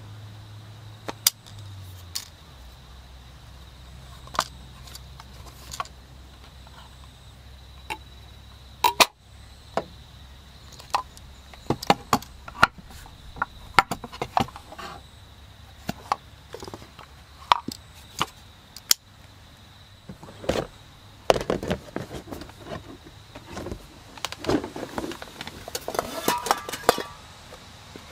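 Wooden cutting boards and a wooden knife box being handled and set down: scattered light knocks and taps, the cutting boards being of cherry wood. Near the end comes a burst of rustling and clinking as a can and small items are packed into a fabric storage box.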